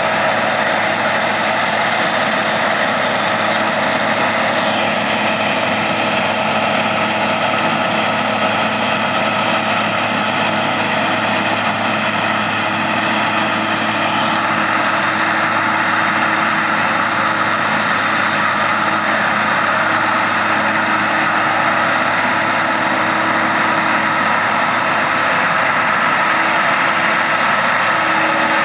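Massey Ferguson 9895 combine harvester running steadily while harvesting corn: a constant machine drone with several steady tones and no change in level.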